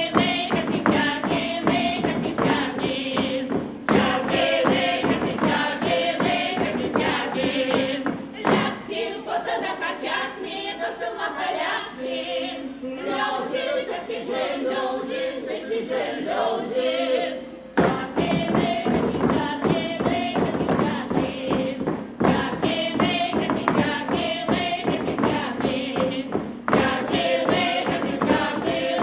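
Vepsian folk choir singing, with a steady beat of thumps under the voices. The beat drops away for about nine seconds in the middle, leaving the voices lighter, then comes back.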